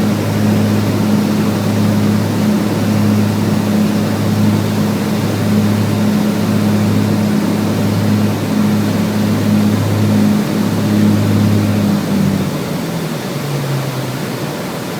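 The Cessna 402B's twin piston engines and propellers run with a steady low drone over a loud rushing noise. Near the end the drone drops in pitch and gets quieter as the engines slow.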